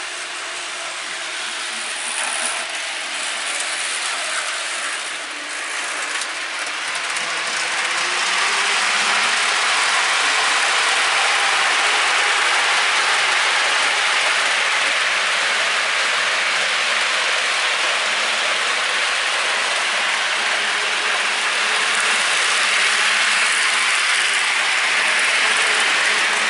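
HO-scale model train running on the track: a steady whirring rattle of its motor and wheels that grows louder about eight seconds in, then holds.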